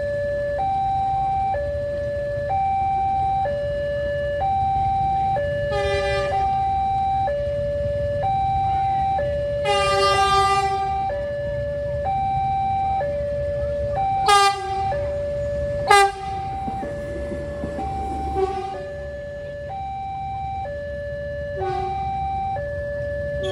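Railway level-crossing gate alarm sounding a steady two-tone hi-lo siren, switching pitch about every three-quarters of a second, over a low rumble of traffic. Short horn blasts cut in about six times, the loudest two about two-thirds of the way through.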